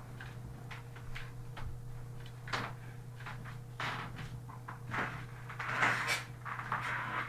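Young African grey parrot, five months old, moving about its cage: scattered clicks and knocks that grow louder and busier from about two and a half seconds in, with a longer noisy stretch near the end.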